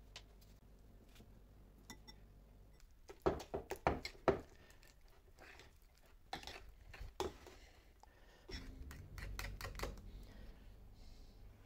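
A few light, sharp clicks and taps, bunched about three to four seconds in and scattered again a little later, then a soft rustle near the end.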